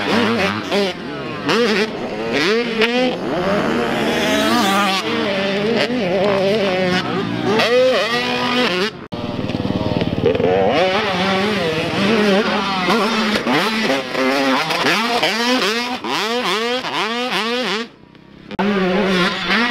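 Super Mini dirt bike engine revving hard and falling off again and again as the rider works the throttle through the jumps and turns. The sound breaks off abruptly about halfway through and dips briefly near the end.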